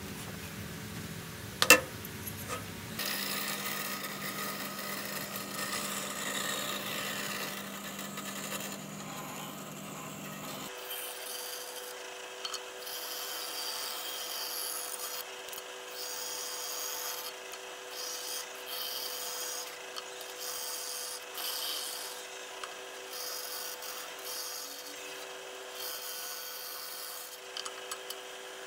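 Bandsaw cutting through a hardwood block, the blade hissing through the wood over a steady motor hum. A single sharp click comes about two seconds in.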